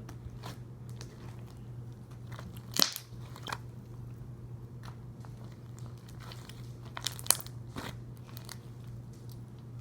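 Fluffy shaving-cream slime being squished and poked by hand, making small crackling clicks and two sharper pops, one about three seconds in and one about seven seconds in. A steady low hum runs underneath.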